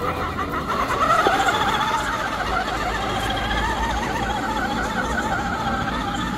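Electric motor and gearbox of a scale RC rock-crawler jeep whining as it climbs a steep dirt slope, a steady whine that wavers slightly in pitch with the throttle.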